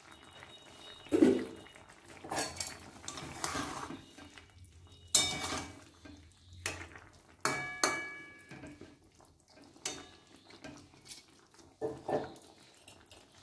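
Metal spoon stirring thick vegetable stew in a metal kadhai: soft scrapes and squelches with scattered clinks and knocks of the spoon on the pan, a few of them ringing briefly.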